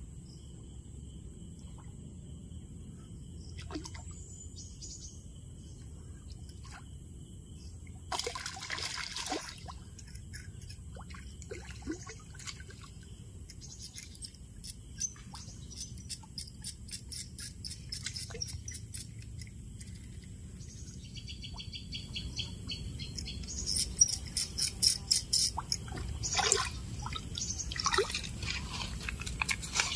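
A fishing reel clicking in quick, even ticks as line is wound in, then water splashing in bursts as a hooked catfish thrashes at the surface, loudest near the end.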